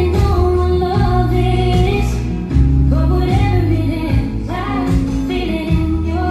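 Music: a song with a female voice singing a melody over steady bass notes and instrumental backing.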